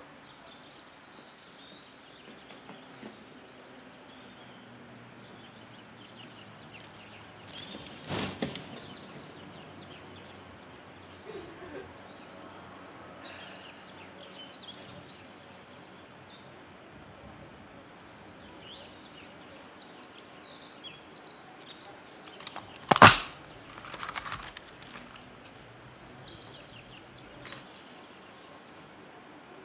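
Outdoor ambience with small birds chirping over a steady background hush. It is broken by a thump about eight seconds in and a much louder, sharp single knock about two-thirds of the way through.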